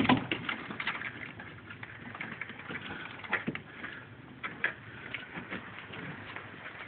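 Irregular small clicks and knocks of parts and tools being handled, with a louder knock right at the start.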